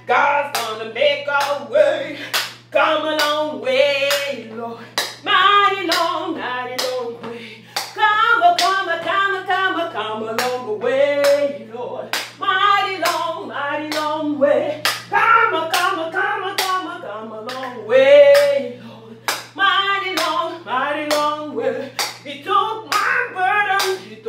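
A woman singing a gospel song in a wavering, drawn-out style with no clear words, over a steady beat of sharp percussive hits.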